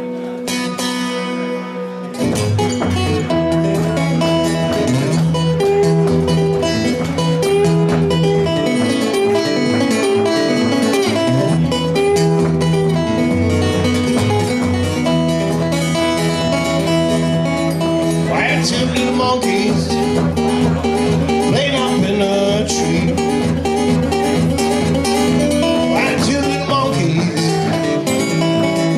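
Acoustic guitar fingerpicked in a blues instrumental passage, a steady run of plucked notes that gets louder about two seconds in.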